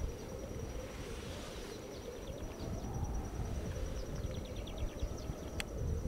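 Natural outdoor ambience: a steady high-pitched insect trill over a low, uneven rumble, with a quick run of faint chirps about four to five seconds in and a single sharp click just before the end.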